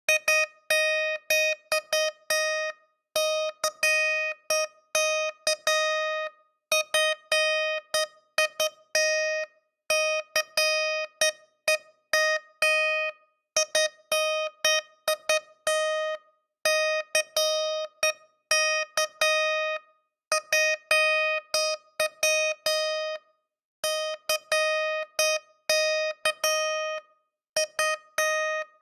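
Morse code sent as a single steady-pitched beep, keyed on and off in short dots and longer dashes. The pulses come in runs of about three seconds with short pauses between them, repeating throughout.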